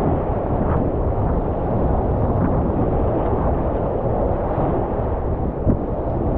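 Rushing whitewater of a muddy, high-water river rapid, heard close from a kayak as a steady loud wash of noise, with a single short knock a little before the end.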